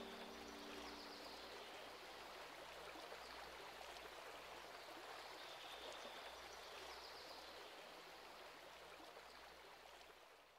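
Faint, steady rush of a running stream as the last piano chord dies away in the first second or so; the water sound fades out near the end.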